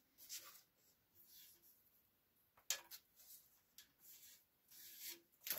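Near silence with a few faint rustles and scrapes and one light knock about two and a half seconds in: a plywood workpiece with a paper pattern on it being slid across the scroll saw table and lifted off the blade, the saw switched off.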